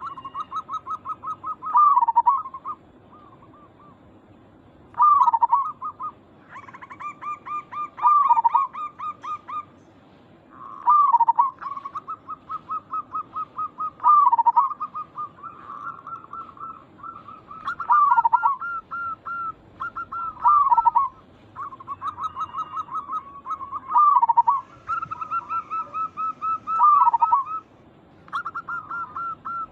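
Zebra dove (perkutut) calls: rapid trains of short, even coos, broken every few seconds by a louder note that swoops downward, repeating throughout. At times a higher, fainter series of notes overlaps, as if a second dove joins in.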